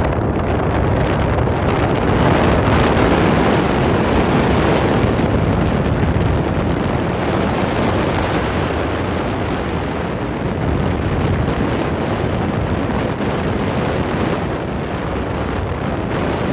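Wind rushing over a handheld camera's microphone from the speed of riding downhill on a snowboard: a loud, steady rush.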